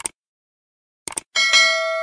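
Subscribe-button animation sound effects: a click at the start, a quick double click about a second in, then a notification bell ding that rings on, slowly fading.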